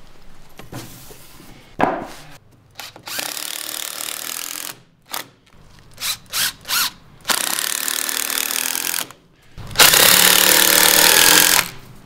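Cordless drill driving long wood screws into stacked wood slices, in several short runs and one longer, louder run near the end, with a knock about two seconds in.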